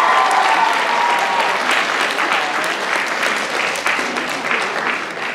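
Audience applauding, with cheering voices in the first second or so; the clapping dies down near the end.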